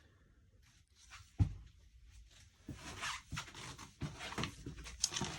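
Light handling and movement noise in a small room: one thump about a second and a half in, then a run of soft rustles and clicks.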